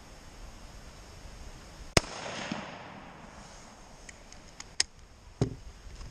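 A single rifle shot from a 1943 Mosin-Nagant in 7.62x54R about two seconds in, with its echo trailing off for about a second. A few seconds later, several sharp metallic clicks as the bolt is worked.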